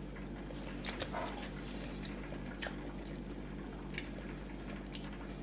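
Faint, soft handling sounds: a few light clicks and rustles as pieces of smoked salmon are torn off by hand and dropped onto the buns, over a steady low hum.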